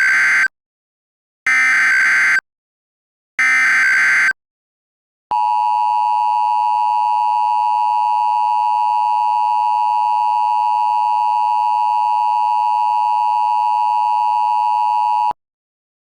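Emergency Alert System tones: three short bursts of SAME header data, a screechy digital warble about a second each. After a short pause comes the two-note EAS attention signal, held steady for about ten seconds, which cuts off sharply.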